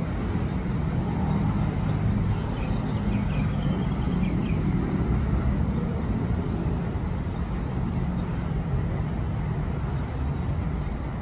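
Steady rumble of city road traffic mixed with a BTS Skytrain running along the elevated viaduct, with a faint high whine early on.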